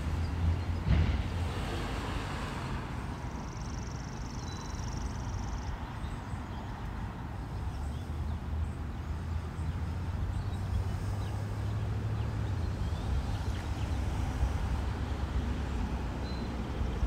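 Steady low rumble of wind on the microphone, with a faint high hiss for a couple of seconds about four seconds in.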